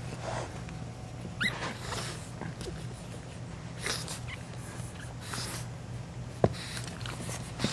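Pug puppy making a short squeak that rises in pitch about a second and a half in, amid scuffling noises as it clambers over the edge of a cardboard box, with a sharp click a little over six seconds in.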